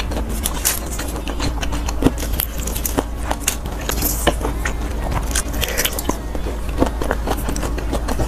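Close-up chewing of crispy deep-fried skewer meat, with quick crackly crunches throughout, over a steady low hum.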